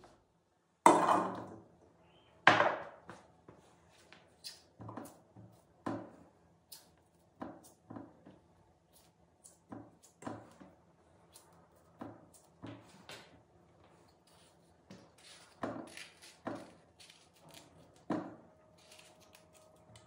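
Kitchen handling knocks at an enamel cooking pot while fruit is cut and dropped into it. Two loud clunks with a short ring come about one and two and a half seconds in, then lighter knocks every second or so.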